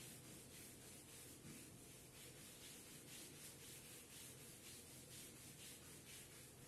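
Whiteboard duster wiping marker writing off a whiteboard: a faint hiss of repeated back-and-forth rubbing strokes.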